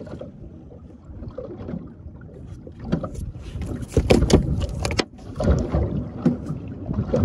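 A freshly landed snapper flapping and slapping against the boat deck. A run of loud, sharp wet slaps comes about three to five seconds in, with a few more after that.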